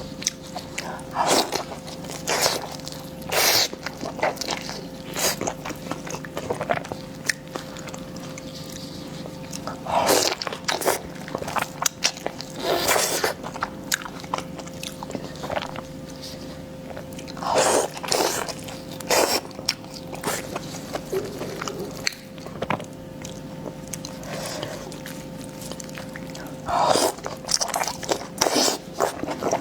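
A person eating close to the microphone: bites and chewing at irregular intervals, with the loudest clusters about a third of the way in, near the middle and near the end. A faint steady hum sits underneath.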